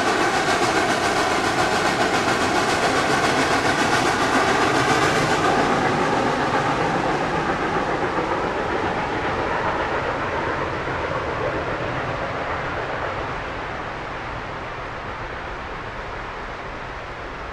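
Steam whistle of the Reading & Northern #425 steam locomotive sounding, with a high steam hiss; both stop about five seconds in. Then the running noise of the train fades steadily as it moves away.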